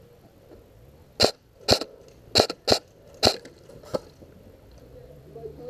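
Airsoft rifle firing single shots: six sharp cracks at uneven intervals over about three seconds, the last one fainter.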